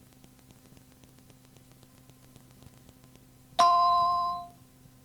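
Faint steady tape hum, then about three and a half seconds in a single electronic cueing chime rings out and fades over about a second, marking the start of the next recorded answering-machine message.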